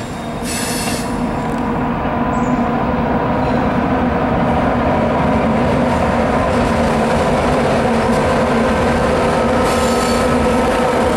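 Maryland Midland freight train's diesel locomotives running steadily as they cross a railway bridge, their engine sound swelling over the first few seconds and then holding. High-pitched wheel squeal comes in the first second and again near the end.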